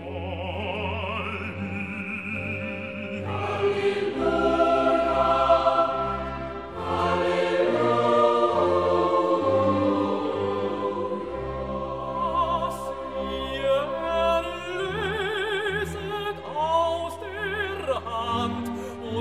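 Classical sacred vocal music: voices singing with vibrato over an orchestral accompaniment.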